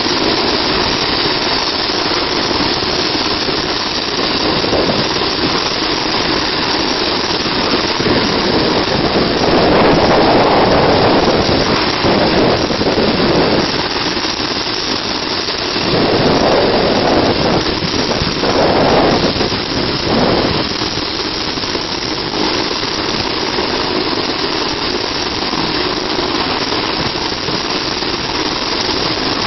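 Medical helicopter running on a rooftop helipad, its turbine engine and rotor heard from a distance as a loud, steady rush. The noise swells louder twice, about a third of the way in and again just past the middle.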